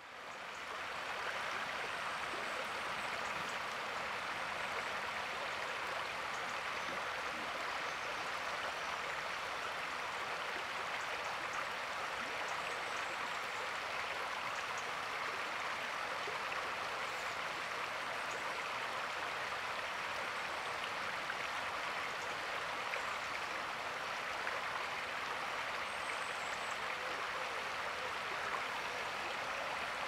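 The shallow River Usk running steadily over stones in a riffle.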